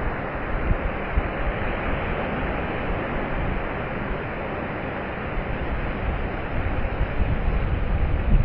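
Ocean surf breaking and washing up a flat sandy beach, a steady rushing noise. Wind buffets the microphone with low rumbles that grow stronger in the second half.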